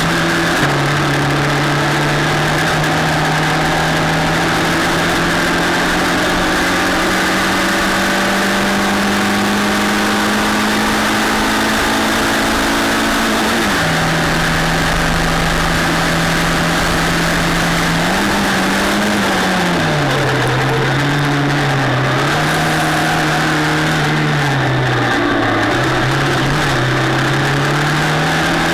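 FLGB F4 single-seater race car's engine under way, heard from the car itself over a steady rushing hiss. The note climbs slowly for a long stretch, drops sharply about halfway, then rises and falls several times through the corners and climbs again near the end.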